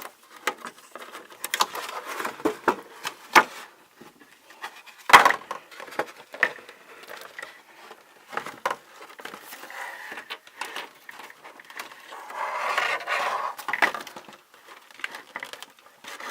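Hands opening a doll's boxed toy packaging: scattered clicks, crinkles and scrapes of cardboard and plastic. There is a sharp snap about five seconds in and a longer rustle near the end.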